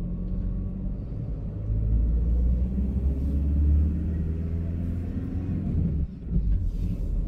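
VW Crafter van's diesel engine and road rumble heard inside the cab while driving. The engine note rises for a couple of seconds, then dips briefly about six seconds in.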